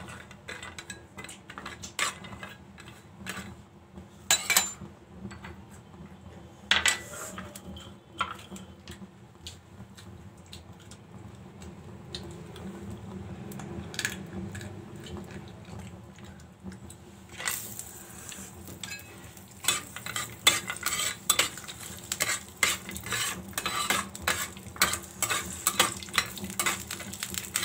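A metal spatula stirring cashews and almonds roasting in a little oil in a small pan, with scattered scrapes and clicks against the pan. About seventeen seconds in, a steady sizzle rises and the stirring clicks come quick and close together.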